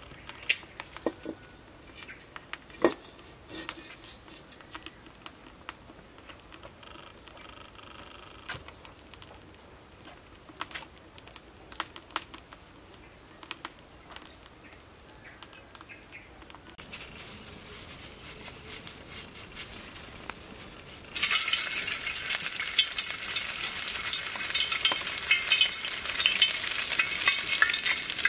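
Scattered clinks and knocks of a wok being handled, then a faint hiss of oil heating, and about three quarters of the way through a sudden loud sizzle as food goes into the hot oil and deep-fries, crackling steadily.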